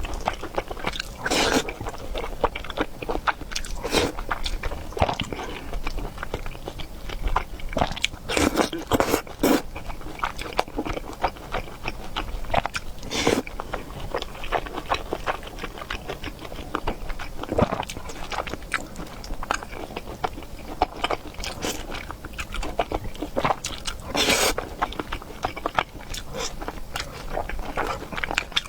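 Close-miked eating: a person chewing and biting food, with irregular sharp clicks and crunches, some louder than others.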